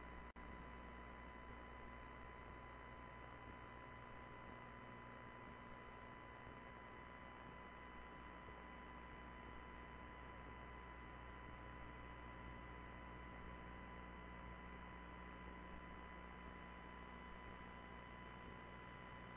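Near silence: a low steady electrical hum with a faint steady high-pitched tone and hiss, and a momentary dropout just after the start.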